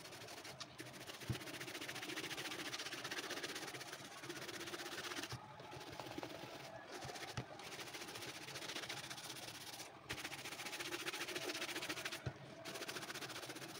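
Bristle shoe brush swished rapidly back and forth over a leather shoe upper, polishing it, in several runs broken by brief pauses.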